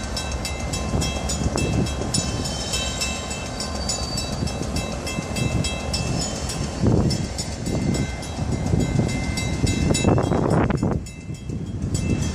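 An old mechanical track warning bell ringing with rapid, steady strokes, signalling that a train is on the track. Low rumbling runs underneath and swells twice in the second half.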